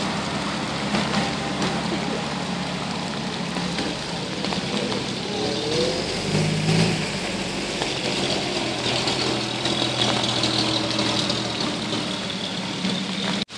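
Engines of WWII-era US Army trucks idling and running at low speed, a steady low hum, as a six-wheel cargo truck moves slowly off.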